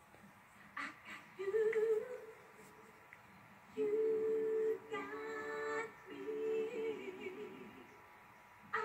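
A single unaccompanied voice singing long, steady held notes, several in a row at nearly the same pitch, beginning about a second and a half in.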